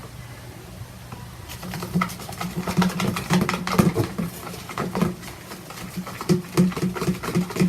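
Face-mask slime being stirred in a bowl: irregular quick clicks and taps of the mixing start about a second and a half in and continue as the mixture begins to clump.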